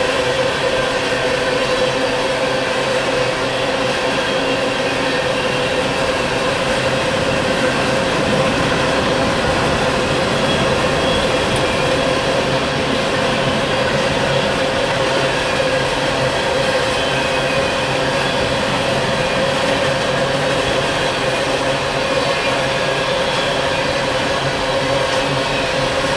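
Empty steel coal hopper cars rolling past at a steady speed: a continuous rumble of wheels on rail with a steady whining tone over it.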